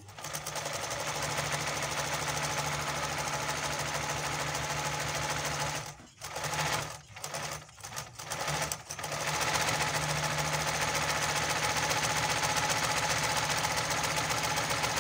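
Olimpia multi-stitch zigzag sewing machine sewing at a steady speed. It stops and restarts in a few short bursts around the middle, then runs steadily again. It is running well after its repair.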